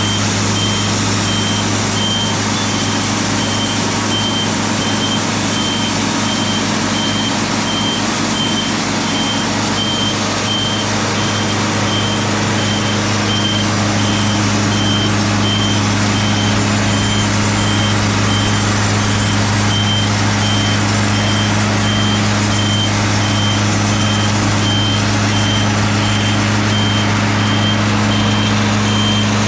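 Sawmill machinery running steadily with a constant low engine drone. A high electronic beep repeats at an even pace throughout.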